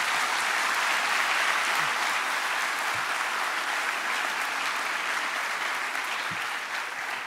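A large audience applauding: steady clapping that slowly tails off towards the end.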